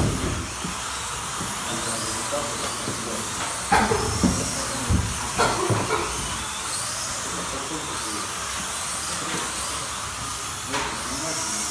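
Several slot cars running on the track: a steady whirring hiss of small electric motors and tyres, their whine rising and falling as they speed up and brake, with a few sharp knocks about four to six seconds in.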